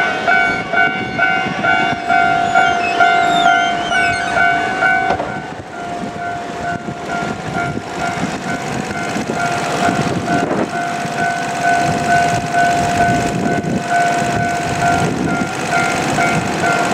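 A railway level-crossing warning bell rings in an even repeating pattern over the rumble and wheel noise of a freight train hauled by a JR Freight EF510 electric locomotive passing the crossing.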